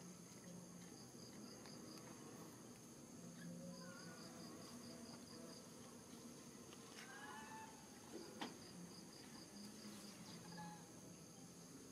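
Faint outdoor ambience of insects chirping: high, evenly pulsed trills in runs of a second or two over a steady high drone, with a few brief rising-and-falling squeaks or chirps scattered through.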